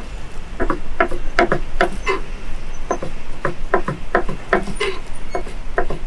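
Knife chopping on a cutting board: a run of quick, sharp chops, about three to four a second, with a short pause about two and a half seconds in.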